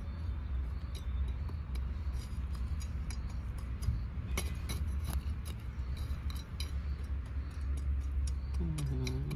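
Small hand hoe scraping and chopping at dry, stony soil, with loose gravel clicking and clinking irregularly as the soil is worked around a seedling. A steady low rumble runs underneath.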